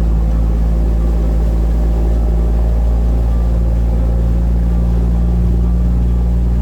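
Sightseeing boat's engine running steadily with a low, even drone.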